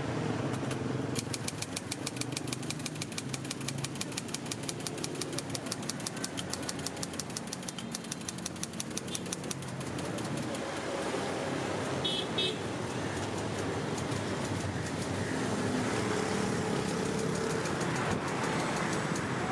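Manual typewriter being typed on in a fast, even run of key strikes for most of the first half, over steady street traffic noise. The typing stops about halfway, the traffic noise grows louder, and a short high tone sounds about twelve seconds in.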